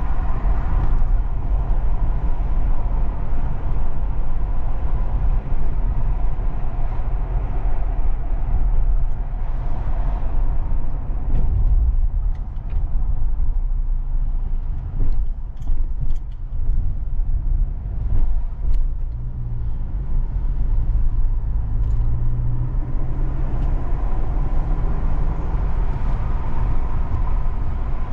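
Car on the move: a steady low rumble of engine and road noise, with the engine's hum rising in pitch about twenty seconds in.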